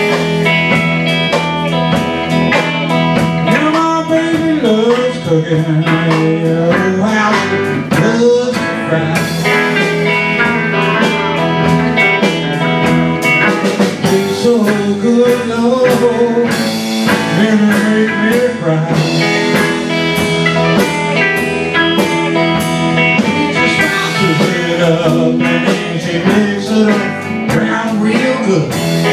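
Live blues band playing an instrumental break: electric guitars, one playing a lead line with bent, sliding notes, over electric bass and drum kit.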